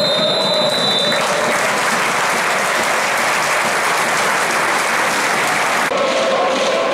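A whistle sounds for about a second, then a football stadium crowd applauds. About a second before the end the sound cuts to fans chanting.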